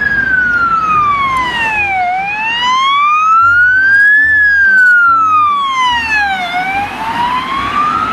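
Ambulance siren sounding a slow wail, its pitch gliding smoothly down and up again, each sweep about two seconds long.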